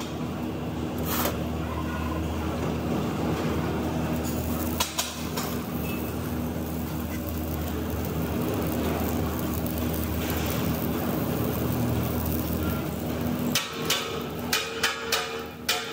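Automatic submerged-arc welding rig running on an LPG cylinder's circumferential seam, a steady machine hum with a noisy hiss. Near the end comes a quick run of sharp metallic taps and clinks.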